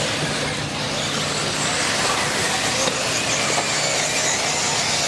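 A pack of electric RC off-road buggies racing, their motors whining and shifting in pitch over a steady rush of track noise.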